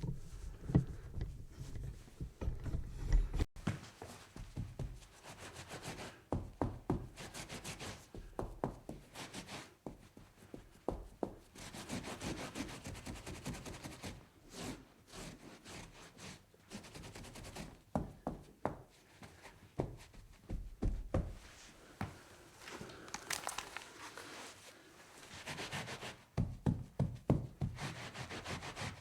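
Wiping and scrubbing a tabletop to clean up spills: irregular rubbing strokes mixed with frequent light knocks and taps.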